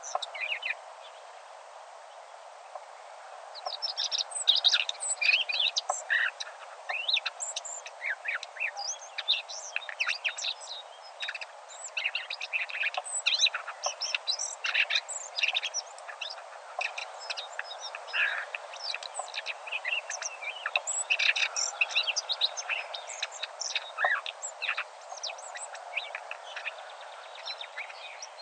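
Birdsong: several small birds chirping and trilling in quick, overlapping phrases over a steady low background hiss. The singing pauses briefly about a second in and picks up again around four seconds.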